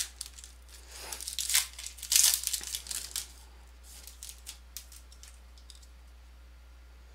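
Foil wrapper of a Panini silver trading-card pack being torn open and crinkled in a run of short crackly bursts, loudest about two seconds in. After about three seconds only faint crinkles and clicks follow as the cards are drawn out.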